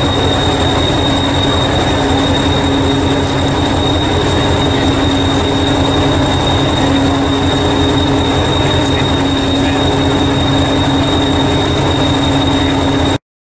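Hastings diesel-electric multiple unit 1001 standing with its engine running at idle: a steady low throb with a constant high-pitched whine over it. The sound cuts off suddenly near the end.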